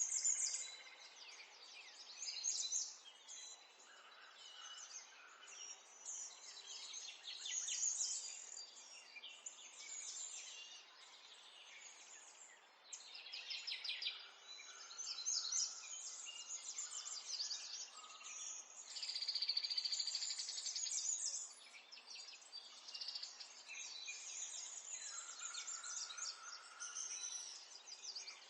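Several small songbirds chirping and singing at once, their calls overlapping continuously, with bursts of rapid trills.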